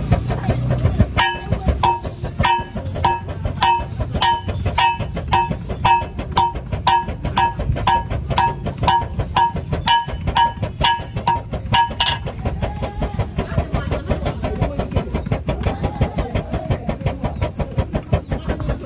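A metal file is drawn across a knife blade lying on an anvil in quick, even strokes, about two a second, sharpening the edge. Each stroke makes the blade ring with a clear metallic tone. Near two-thirds of the way through the ringing stops, and softer scraping strokes go on.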